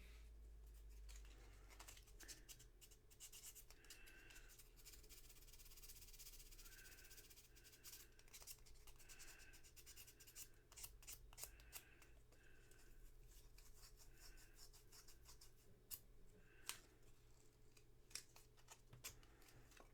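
Faint scrubbing and scraping of small switch parts being cleaned by hand, with light clicks and short squeaks from the rubbing.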